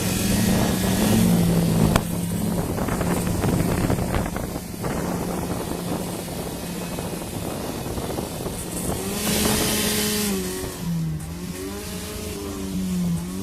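Engine running loudly, its pitch shifting up and down as it is revved, with a burst of hiss about nine seconds in.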